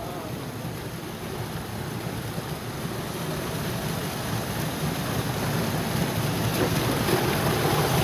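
Small waterfall pouring into a rock pool, the water rushing and splashing close by, growing steadily louder.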